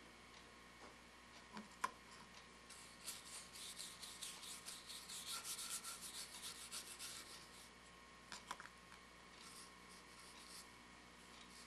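Hand-sanding the edge of a flat cutout in short, quick rubbing strokes, faint, with the strokes picking up about three seconds in and easing off near the end. Two light clicks, one early and one later.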